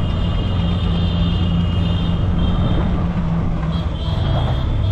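Riding inside a three-wheeled rickshaw through city traffic: a steady low hum of the running vehicle over road noise, with a thin high whine that comes and goes.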